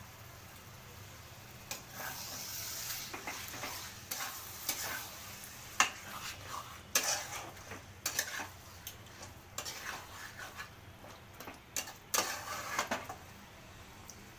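A spoon stirring and scraping marinated chicken through frying masala in a cooking pot, with irregular knocks against the pot and sizzling. It starts about two seconds in and dies down near the end.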